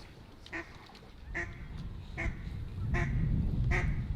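Duck quacking: a steady run of evenly spaced quacks, about one every three-quarters of a second, over a low rumbling noise that swells from about a second in.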